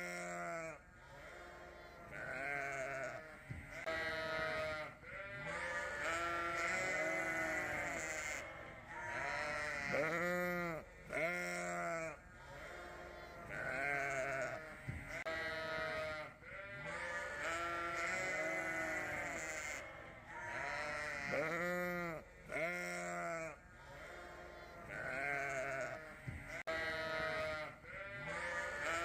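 A flock of ewes bleating continuously, many calls overlapping, some higher and some lower.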